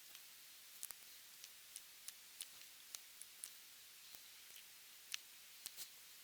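Light, irregular clicks and taps, about a dozen scattered over a few seconds against faint hiss, as small plastic model-kit parts and hobby tools are handled on a workbench.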